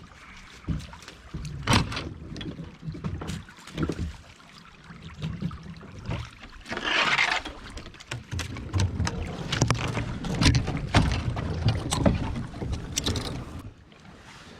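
Kayak pushing through overhanging riverside bushes: branches and leaves scrape and brush against the hull, with many scattered knocks and a louder rush of rustling leaves about seven seconds in.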